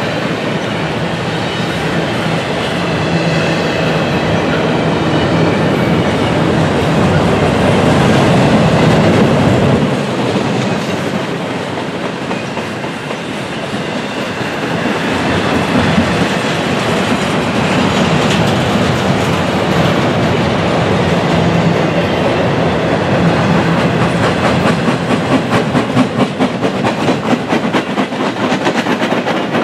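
Double-stack intermodal freight train rolling past: steady rumble of steel wheels on rail from the well cars, with clickety-clack that turns into a distinct, even rhythm near the end.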